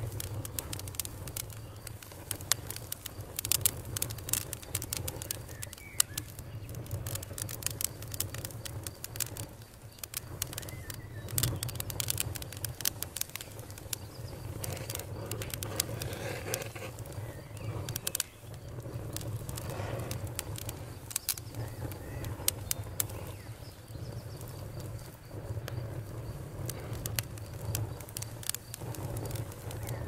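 Wood campfire crackling, with frequent sharp pops and snaps over a steady low rumble of the flames. Birds are faintly audible behind it.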